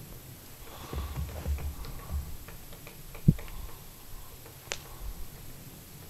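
Woodpecker foraging, pecking at bark in scattered, irregular taps, with a sharp tap near the end. There is low rumbling in the first half and one louder low thump about three seconds in.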